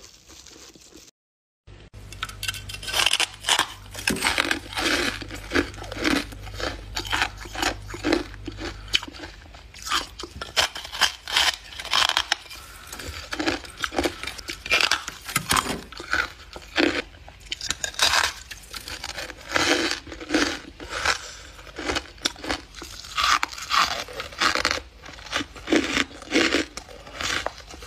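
Close-miked biting and chewing of freezer frost chunks: a dense, irregular run of crisp crunches that starts after a brief dropout about a second in.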